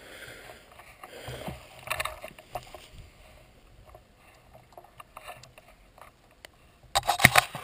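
Close handling noise on a gun-mounted camera: rustling and light knocks as the shotgun is lifted and tilted, then a quick burst of loud knocks and clicks near the end.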